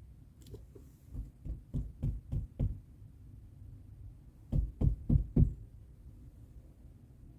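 Dull knocking in two quick runs: about six knocks, then after a pause about four more, roughly three a second.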